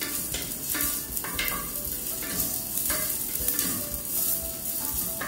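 White onions sizzling and frying in hot olive oil in a pan, stirred with a wooden spoon that scrapes across the pan about once or twice a second. The sizzle is the sign that the oil is hot as the onions soften.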